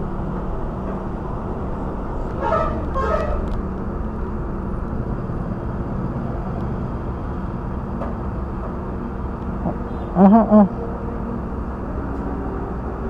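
Petrol pump dispensing fuel through a nozzle into a jerry can: a steady hum with a rushing flow. About ten seconds in there is a short, loud pitched sound in three quick pulses, and a fainter pair of pitched sounds comes a few seconds earlier.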